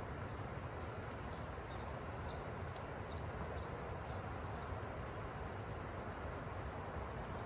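Steady rush of a flowing river, with a series of faint, short, high bird chirps from about one to five seconds in.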